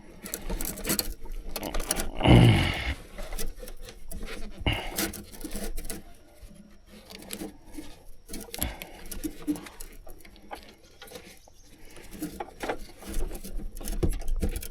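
Irregular clicks, taps and scrapes of hands working rubber fuel hose pipes and their clips back onto a diesel fuel filter, with one louder, falling-pitched sound about two and a half seconds in.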